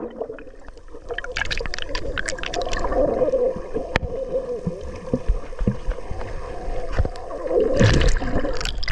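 Seawater splashing and gurgling right at the camera as someone swims, with a low rumble of moving water throughout. There is a run of splashes about a second and a half in and a louder burst of splashing near the end.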